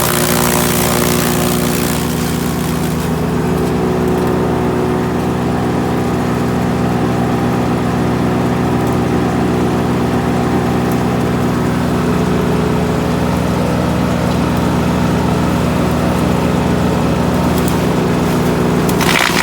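GreenMech Arborist 150 wood chipper running steadily with its engine held at a constant speed. A harsher rushing noise rides over it for the first couple of seconds and comes back at the very end.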